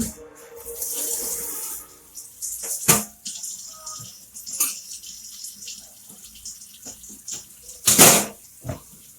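Water running in short spells at a kitchen sink, with several knocks and clatters among them; the loudest is a sharp knock about eight seconds in, another comes near three seconds in.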